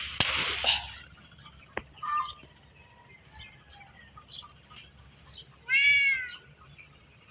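A loud rustling burst in the first second, then quiet with a few faint clicks. About six seconds in comes a single short animal call that rises and falls in pitch.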